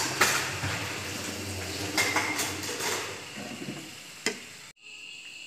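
A cooking utensil scraping and clinking through freshly stir-fried papaya shoots and pork over a sizzling hiss. There are several scrapes and a sharp click, then the sound cuts off suddenly, leaving a steady high chirring of insects.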